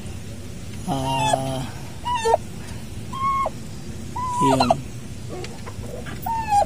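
Domestic turkeys, a hen with her week-old poults, calling: a string of short whistled calls near one pitch, spaced about a second apart, with one call about four and a half seconds in that falls steeply in pitch.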